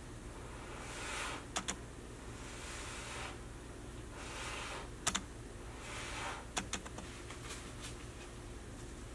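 A person blowing with the mouth onto wet poured acrylic paint to spread it out into a bloom, in about four soft puffs of breath. Short sharp clicks come in pairs between the puffs.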